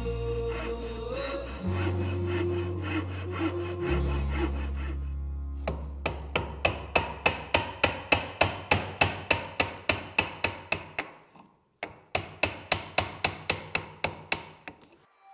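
Held musical notes for the first few seconds. From about six seconds in come short, sharp hand-tool strokes, about three a second, with a brief pause near the end; they are a chisel paring the walls of a mortise in hardwood.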